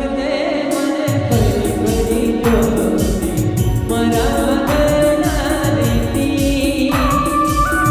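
Gujarati band song: singing over instrumental backing, with a steady drum beat that comes in a little over a second in.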